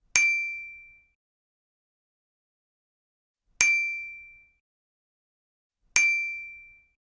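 A bright metallic ding sound effect, struck three times (near the start, about three and a half seconds in, and near the end). Each ding rings out and fades in about a second, with dead silence between.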